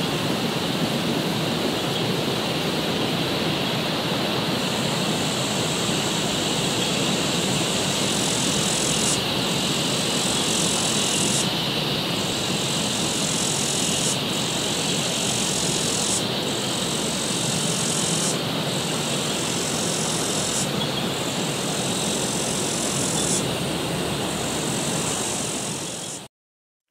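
Steady rushing noise with a high hiss that switches on and off about every two seconds from about five seconds in. It cuts off suddenly near the end.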